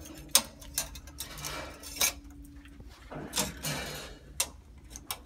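Metal parts of a Vingcard RFID door lock clicking and clinking as the reader and cover-plate assembly are handled and fitted against the door. Scattered sharp clicks, with a couple of short scraping rustles.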